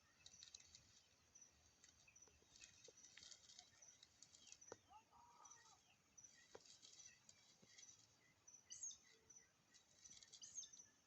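Near silence: faint outdoor ambience of many short, high chirps, with one short arched call about five seconds in and a few soft clicks.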